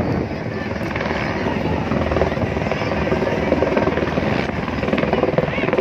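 Light single-rotor helicopter flying overhead: steady, loud rotor chop over engine noise.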